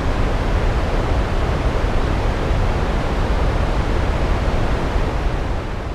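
Waterfall: a loud, steady rush of heavily falling water, easing a little near the end.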